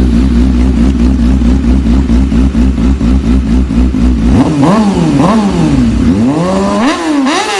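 Motorcycle engine running steadily for about four seconds, then revved up and down over and over in quick, even sweeps.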